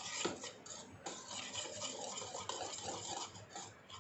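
Wire whisk stirring dry flour, sugar and baking powder in a bowl: a fast, scratchy swishing with light clicks of the wires against the bowl, dying down near the end.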